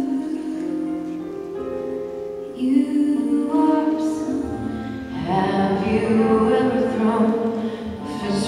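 Slow recorded show music with held, sung-sounding notes, swelling fuller and louder about five seconds in.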